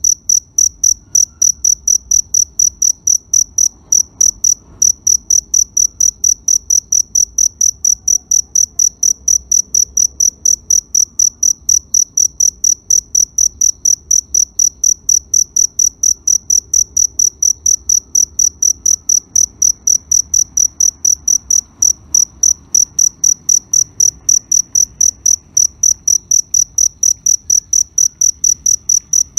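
A cricket chirping steadily, a high, even chirp repeated about three times a second, over a faint low background hum.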